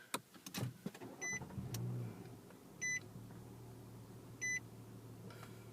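2010 Nissan Maxima's 3.5-litre VQ35DE V6 started by push button: a few clicks, the engine catching about a second in, then settling into a steady idle. A short dashboard chime repeats about every second and a half.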